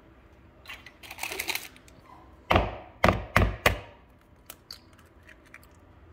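An egg knocked against the rim of a plastic mixing bowl to crack it open: four sharp knocks in quick succession about halfway through, after some soft handling noise.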